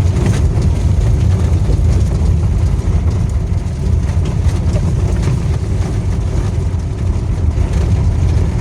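Steady low roar of a waterfall heard up close.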